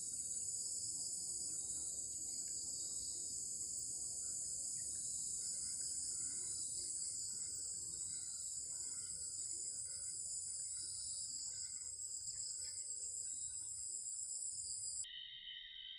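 Steady, high-pitched insect chorus that runs without a break over a faint low rumble. About a second before the end it cuts off abruptly and a lower-pitched insect drone takes over.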